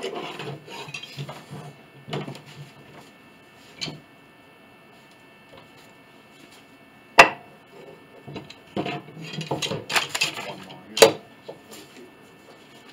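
Heavy steel C-clamps being handled and screwed down to clamp a glue-up: metal clinking and rattling of the sliding T-handles, with two sharp metallic knocks, one about midway and one near the end.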